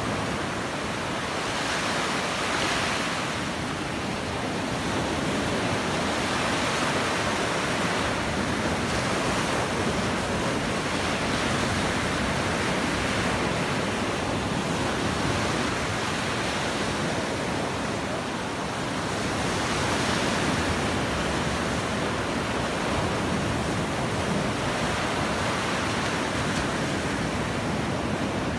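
Surf on a sandy beach: small waves breaking and washing up the shore in a steady rush that swells and eases a few times.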